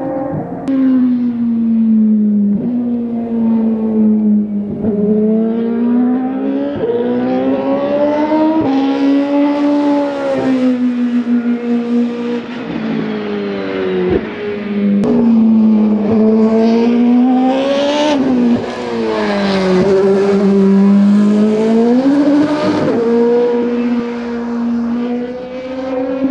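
Toyota TS030 Hybrid LMP1 prototype's 3.4-litre V8 racing engine, its note climbing and falling over and over as the car accelerates, brakes and shifts gears around the circuit.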